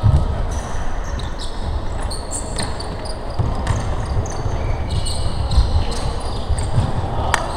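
Indoor pickup basketball game on a hardwood court: the ball thudding as it is dribbled and passed, with sneakers squeaking sharply on the floor as players run and cut.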